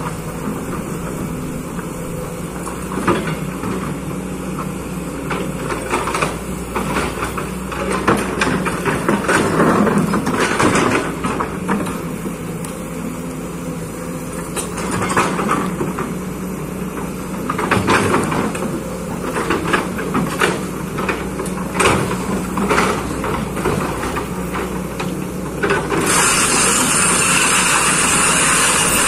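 Kobelco excavator's diesel engine running steadily as the machine levels soil, with frequent knocks and scrapes from the work. About three seconds before the end a loud, steady hiss sets in over it.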